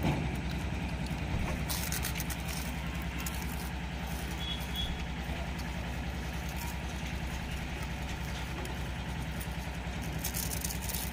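An engine running steadily at idle, a low even throb, with brief crisp crunches of potato wafers being bitten about two seconds in and again near the end.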